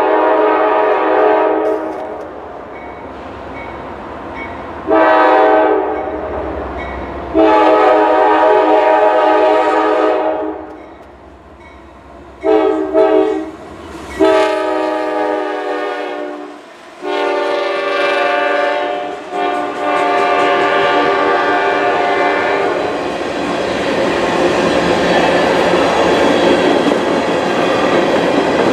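A Norfolk Southern freight locomotive's air horn sounds a series of long and short blasts, each a chord of several notes, as the train approaches the crossing and reaches it. After about 20 seconds the horn stops, and the steady rumble and clatter of the freight cars rolling past takes over.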